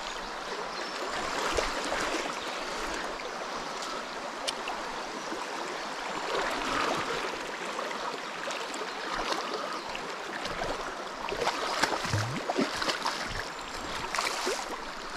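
Shallow river running over a riffle: a steady rush and babble of flowing water.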